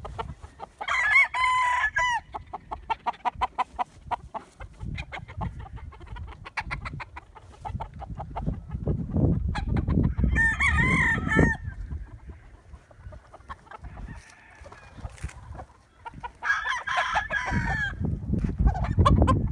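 Roosters crowing three times, about a second in, in the middle and near the end, with chickens clucking in quick runs between the crows.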